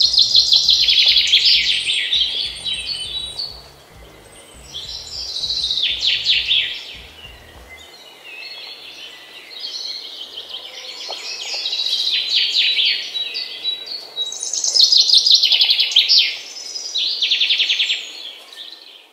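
Birds chirping in repeated bursts of quick, high trills, loudest at the start and again about two-thirds through.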